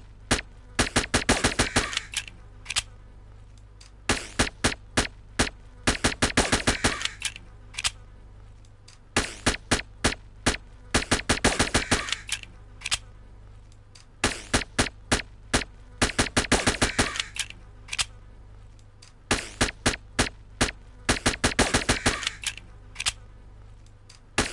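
Sound effect of a suppressed USP pistol firing: sharp muffled shots, some single and some in fast strings, in a pattern that repeats about every five seconds, over a low steady hum.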